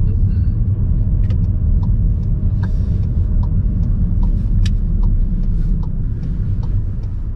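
Road and engine rumble inside a moving car's cabin. From about two seconds in, a turn-signal indicator ticks steadily, about two to three times a second, as the car sets up a right turn.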